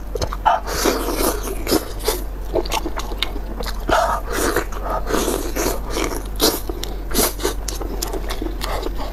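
Close-miked wet eating: biting into, slurping and chewing soft, sauce-soaked stuffed lamb stomach, with many sticky smacks and clicks. A low steady hum runs underneath.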